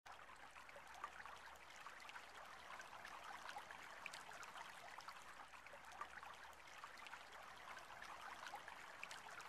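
Near silence: faint outdoor hiss with a few scattered soft ticks.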